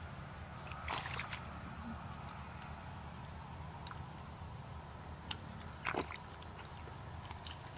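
Hands splashing and groping in shallow muddy water, then feet squelching through wet mud, a few short sharp splashes about a second in and again around five to six seconds in. Under them runs a steady low rumble and a thin high steady tone.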